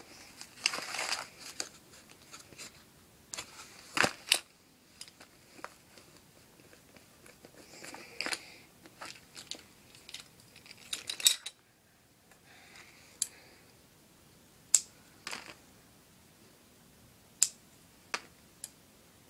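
Plastic modelling-clay tools being handled: irregular sharp clicks and taps, with short rustles, as a toy mould and rolling pin are pressed, picked up and set down. A few clicks stand out louder than the rest.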